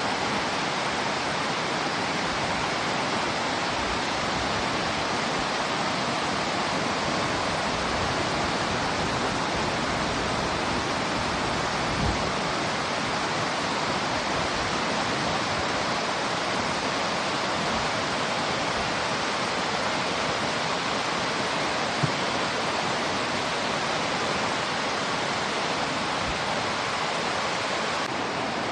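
Mountain river water rushing steadily over rocks downstream of a waterfall, a continuous loud roar. A couple of brief soft knocks cut through it, about halfway and again near the end.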